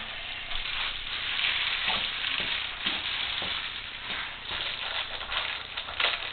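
Reflective bubble-foil insulation crinkling and crackling as it is pressed and tucked into a metal garage door panel, a steady rustle with small irregular crackles.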